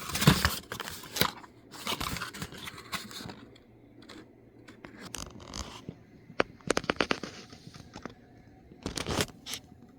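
Plastic blister packaging being pried and pulled open by hand: irregular rustles and sharp clicks, busiest in the first few seconds, with a quick run of clicks about seven seconds in and another short burst near the end.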